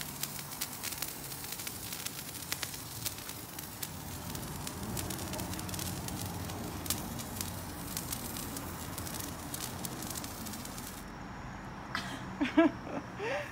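Hand-held firework burning with a steady hiss and many sharp crackling pops, which die away about eleven seconds in as it burns out. Near the end come a few short rising vocal sounds.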